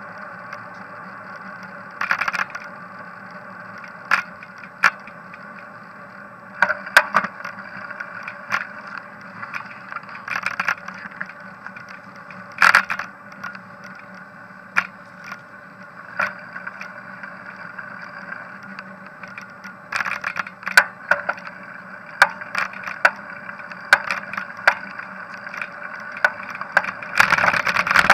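Bicycle ridden over a paved path, picked up by a camera on its handlebar: a steady running hum broken by irregular knocks and rattles as the bike goes over bumps and joints in the paving.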